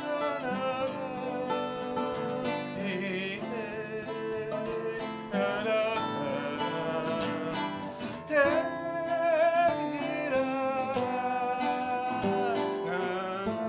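Music: acoustic guitar playing under a melody line with vibrato, in a stretch with no sung words.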